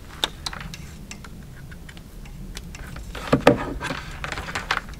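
Scattered small clicks and taps of an antenna cable and connectors being handled as a cell signal booster is switched to a different antenna, with the loudest pair of knocks about three and a half seconds in.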